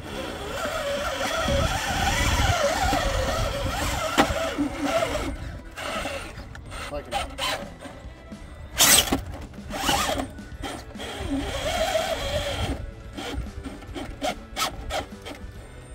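Electric RC rock crawler's motor and geared drivetrain whining in surges as it climbs boulders, with sharp knocks and scrapes of the tires and chassis against the rock.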